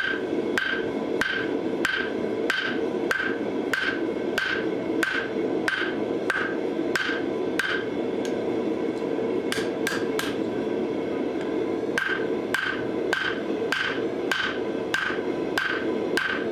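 Hand hammer striking hot steel on an anvil, forging a 1084 high-carbon steel straight razor blank. Steady blows come about two a second, each with a short metallic ring. The blows break off briefly past the middle, then resume, over a steady rushing noise.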